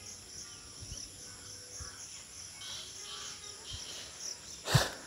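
Insects chirring steadily in the grass, with a few faint footsteps and one sharp thump near the end.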